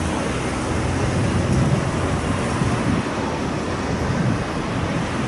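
Steady low rumble and rushing noise of a motorised river sightseeing boat, its engine drone mixed with water and wind.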